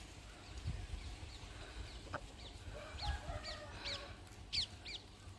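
Chickens clucking faintly, with a run of short high chirps repeating from about halfway through.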